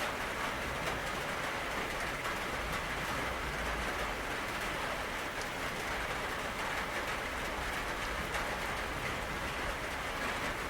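Steady rain falling: an even hiss of many drops that keeps the same level throughout.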